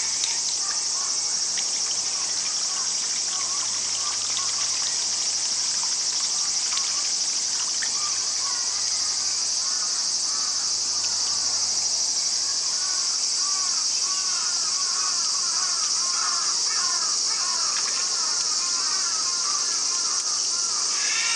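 Steady, high-pitched chorus of insects, with many short chirps over it that grow thicker in the second half.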